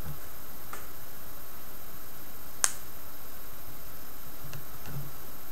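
A single sharp snap about halfway through from a small electric wire welder sparking as silver wire and 0.15 mm nichrome wire ends are touched to its contact to fuse them. A few much fainter ticks come before and after.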